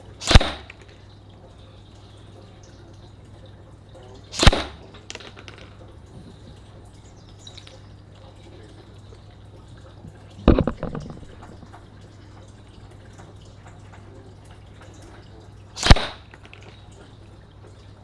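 Specna Arms M4 Core airsoft electric rifle firing four single shots several seconds apart, each a sharp crack; the third is followed by a short rattle.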